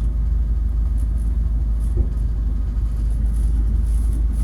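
Passenger train running along the line, a steady low rumble with one short knock about two seconds in.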